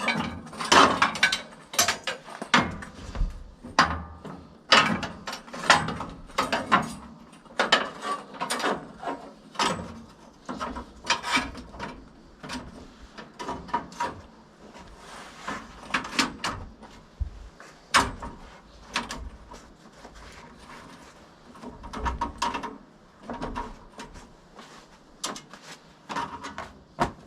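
Irregular metallic clicks, clanks and rattles as a new steel band blade is handled and fitted onto a portable sawmill's band wheels.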